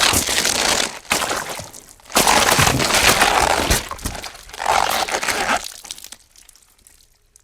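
Gore sound effect of crunching and cracking, like flesh and bone being crushed, in three swelling bursts that thin out and fade near the end.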